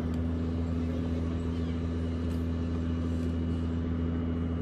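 Steady low drone of a large cruise ship's engines running, a constant hum of several deep tones.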